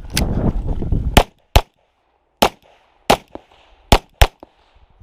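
Glock 34 9mm pistol firing six shots in a competition string, at uneven spacing with a quick pair near the end, after about a second of low rumbling noise on the microphone.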